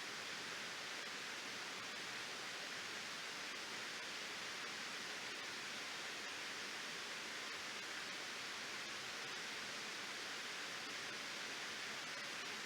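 Reservoir waterfall: water pouring over a dam spillway in a steady, even hiss with no change.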